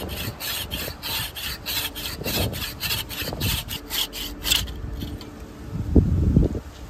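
Coarse-toothed ZETSAW Tuck-in 240 folding pruning saw cutting through a tree limb in quick, even strokes of about three a second. The strokes stop about four and a half seconds in as the cut goes through. Near the end there are a couple of low bumps.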